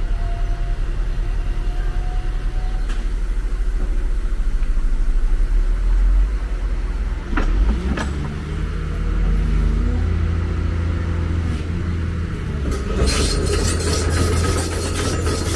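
Heavy diesel machine engine running with a steady low rumble. About halfway through there are two sharp clanks and the engine note rises and holds. Near the end comes a dense metallic clattering and squealing.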